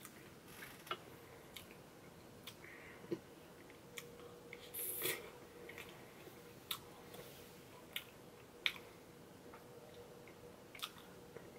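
Quiet eating of ice cream cake: scattered light clicks of a metal spoon against a glass bowl and soft mouth sounds of chewing, with a brief louder noise about five seconds in.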